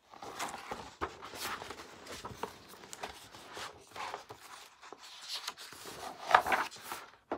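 A page of a large hardcover picture book being turned by hand: paper rustling and sliding in a string of short scrapes, with the loudest rustle about six seconds in.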